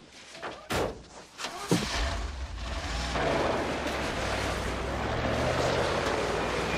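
A few sharp thumps, then an old van's engine running hard as a wheel spins in deep snow, with a rushing hiss of tyre and thrown snow joining in about three seconds in.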